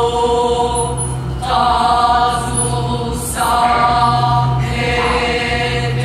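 Choir-like chanting music: long held vocal notes over a steady low drone, a new note starting about every second and a half.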